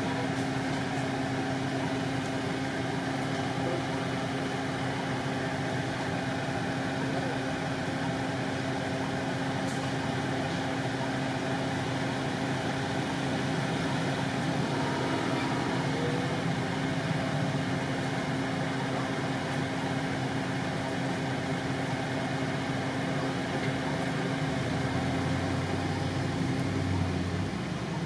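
A steady mechanical hum with a constant low tone, unchanging throughout, with no distinct calls or knocks.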